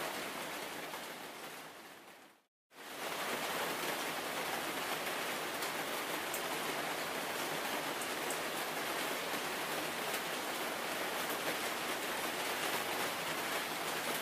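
Steady rain, an even hiss with scattered fine drop ticks. It fades out about two seconds in, goes silent for a moment, then comes straight back at the same level and holds steady.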